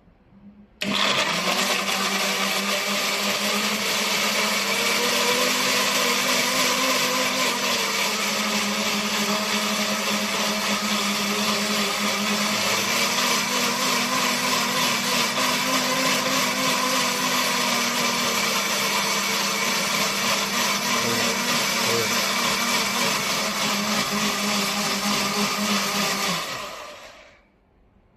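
CRANDDI 1800 W commercial blender running while blending fruit and liquid into a smoothie. It starts abruptly about a second in, runs steadily for about 25 seconds, then winds down and stops near the end.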